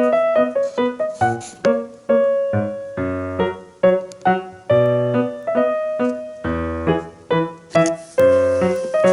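Background music: a keyboard or piano-like melody of quick, separately struck notes with a steady beat.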